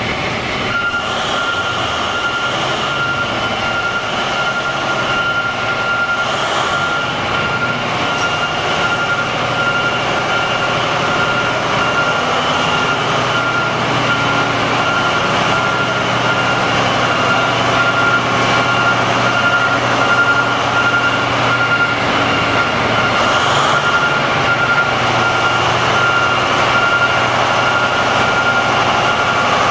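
Steady machinery drone with a constant high-pitched whine over a low hum that slowly shifts in pitch.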